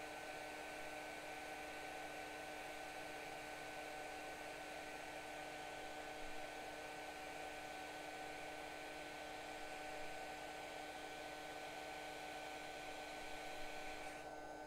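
Hot air rework station blowing onto the board to melt the solder under the iPhone 7 audio IC: a faint, steady hiss over a steady electrical hum, the hiss cutting off near the end.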